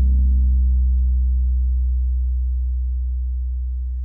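A 16-inch DW Design Series floor tom with new Remo Powerstroke 4 heads, freshly tuned to a low overall pitch, ringing out after a single hit: a deep, sustained boom that fades slowly and evenly.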